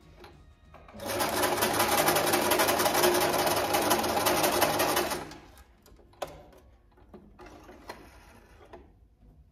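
Singer Simple electric sewing machine stitching a zigzag, used here in place of an overlock to finish a raw fabric edge. It starts about a second in, runs at a fast, even needle rate for about four seconds, then stops, followed by a few light clicks.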